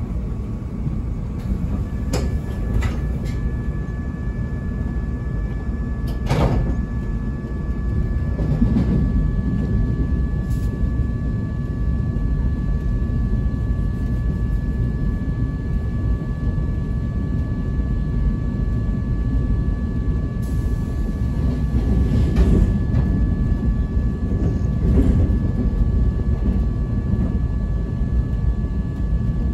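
Inside an Acela Express passenger car at speed: a steady low rumble of wheels on the rails, a constant high whine over it, and a few scattered knocks and clicks.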